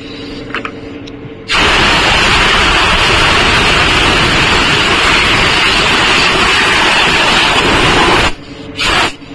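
Compressed-air blow gun hissing in one long blast of about seven seconds that starts and cuts off abruptly, blowing out tractor parts during servicing. A quieter steady hum runs underneath before and after the blast.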